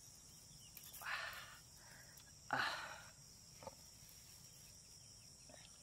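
Faint steady insect chirring, with two short soft hissy noises about one and two and a half seconds in.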